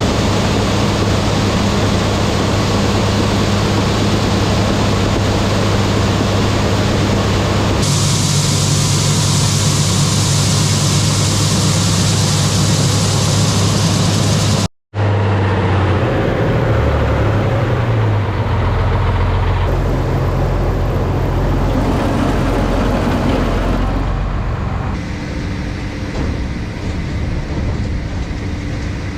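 Machinery running steadily with a strong low hum, in edited pieces: the sound changes abruptly about eight seconds in, drops out for a moment around fifteen seconds, and shifts again near twenty-five seconds.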